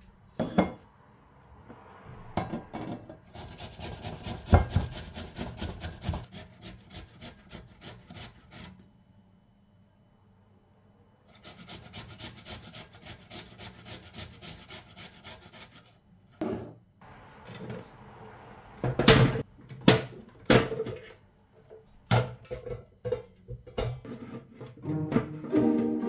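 Vegetables being shredded on a handheld metal grater in quick, even rasping strokes, in two runs with a short pause between. After that come several louder knocks and clatters of kitchen things being set down on the counter.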